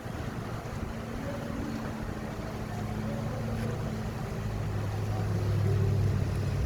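Bulldozer's diesel engine running steadily, growing louder in the last couple of seconds with a deeper, stronger hum.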